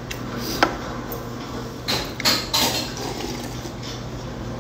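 A person slurping soup broth from a bowl held to the mouth, a few short noisy slurps about two seconds in, after a light knock of dishware near the start.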